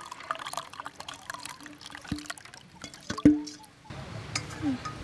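Chunky chili-garlic sauce pouring and dribbling from a stainless steel bowl into a ceramic bowl, with a run of small wet drips and ticks. About two and three seconds in come two knocks that make the metal bowl ring briefly; the second knock is the loudest.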